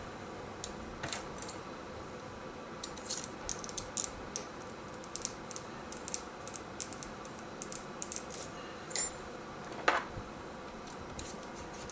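Small metal parts and hand tools clicking and clinking as they are picked up and handled, an irregular run of short light ticks with one duller knock near the end.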